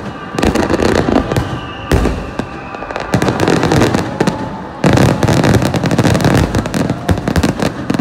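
Fireworks display: aerial shells bursting in quick succession, a mix of booms and dense crackling, heaviest from about five seconds in.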